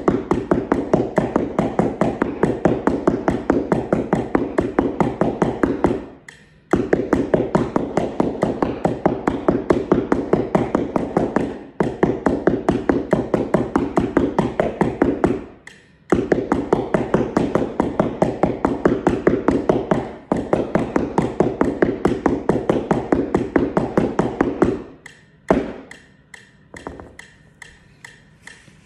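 Yarn mallets striking a flat one-octave practice keyboard on the floor in fast, even strokes, many a second. The playing comes in runs of about four to five seconds with brief breaks, then gives way to a few scattered, quieter taps near the end.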